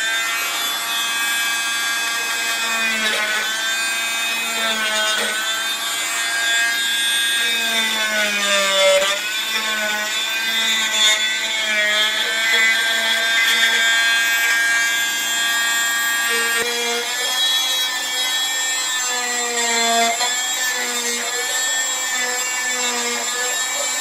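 Dremel rotary tool running at high speed, its bit carving into a block of wood: a steady whine that dips in pitch again and again as the bit bogs under load.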